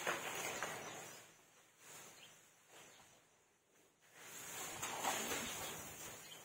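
Sleeping baby elephant breathing through its trunk: slow, noisy breaths that swell up and fade, the strongest at the start and about four seconds in.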